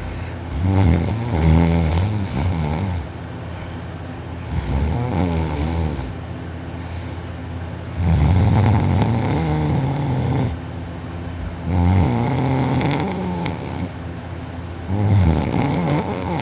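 A young man snoring loudly in deep sleep: about five long snores, each one to two and a half seconds, coming every three to four seconds.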